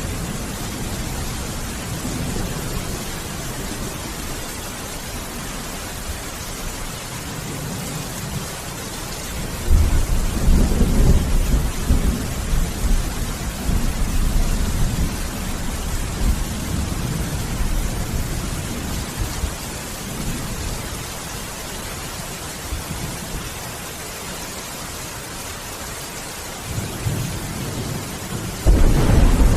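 Steady rain falling through a thunderstorm, with low rolling thunder. A loud thunderclap breaks about ten seconds in and rumbles on for several seconds, and another sudden clap comes near the end.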